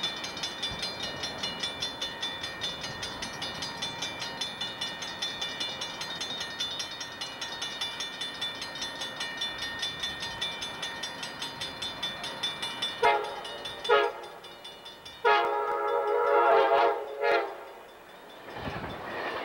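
A warning bell rings rapidly and steadily, about three strokes a second, as an Amtrak passenger train approaches. Then the train's multi-note air horn sounds twice, a short blast followed by a longer one.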